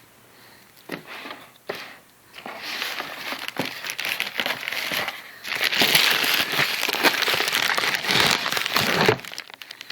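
Packaging being handled and crinkled, a few short rustles at first, then a long stretch of continuous crinkling that grows louder about halfway through and stops shortly before the end.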